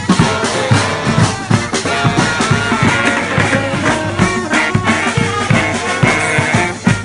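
Street brass band playing: held horn notes over a steady, driving drumbeat.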